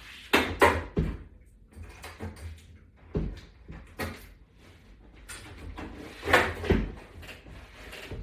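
Scattered knocks and clatter of a wall-mount bar section and butterfly toggle bolts against a wall as the bolts are pushed into their holes. The loudest knocks come in pairs about half a second in and again a little after six seconds.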